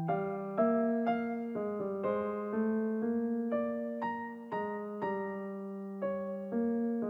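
Background piano music, notes and chords struck about twice a second, each fading as it rings.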